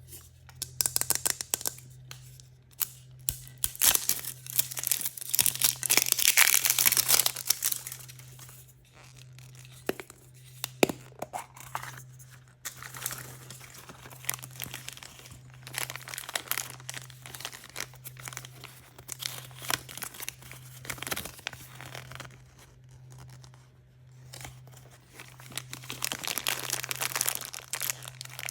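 Hands tearing open and crinkling the wrappers of surprise-toy packages, in dense crackling rustles that come in bursts, loudest about a quarter of the way in and again near the end. A faint steady low hum lies underneath.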